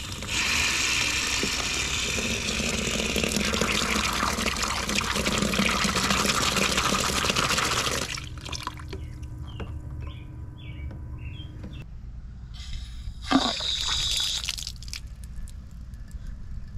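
Water gushing from a newly installed Sharkbite indoor hose bib into a plastic cooler, a steady rush that cuts off sharply about eight seconds in as the valve is closed. A second, shorter rush comes near the end.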